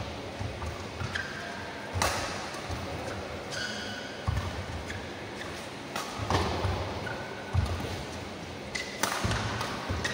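Badminton rally: sharp cracks of rackets striking the shuttlecock, about three in all, with dull thuds of players' feet landing on the court and short squeaks of shoes on the floor.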